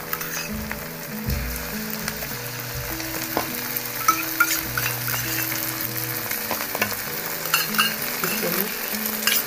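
Onion and ginger-garlic paste sizzling as it fries in hot oil in a pan, with a spatula scraping and tapping now and then as it is stirred.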